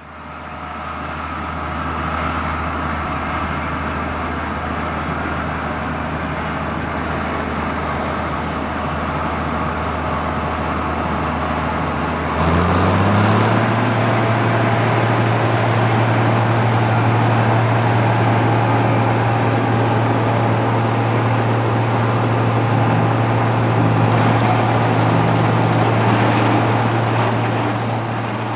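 1975 Claas Senator 85 combine harvester working in wheat: the six-cylinder diesel engine runs under load over the steady clatter and whir of the threshing and separating gear. About twelve seconds in, the engine note steps up in pitch and grows louder, then holds steady.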